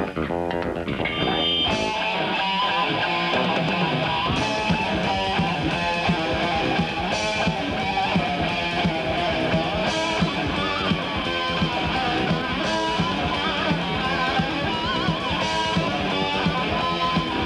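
Heavy metal band playing an instrumental passage on distorted electric guitars, bass and drums, with a cymbal crash about every two and a half to three seconds.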